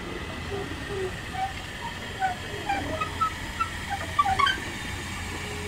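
LMS Jubilee class three-cylinder steam locomotive 45690 Leander moving slowly past with a steady low rumble. Over it comes a run of short, squeaky calls at scattered pitches, thickest about four seconds in.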